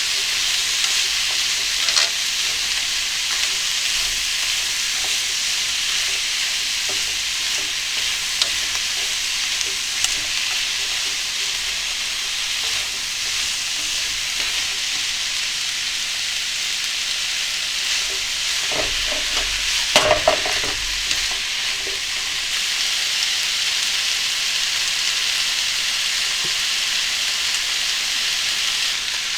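Food sizzling steadily in a pan, with a few light utensil clicks and a short burst of clattering about two-thirds of the way through.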